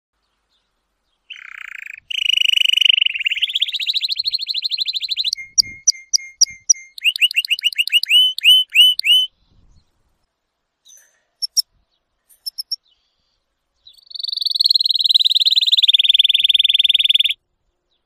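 Domestic canary singing: fast trilled rolls and runs of repeated chirps and down-sweeping notes, a short break in the middle, then a long fast trill near the end that slowly falls in pitch.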